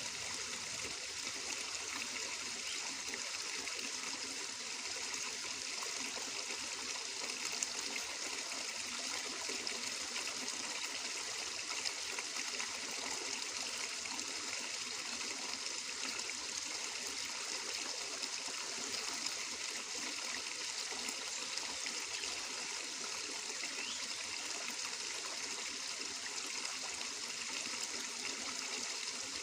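Water flowing and trickling steadily, a continuous babbling with small splashes and no pause.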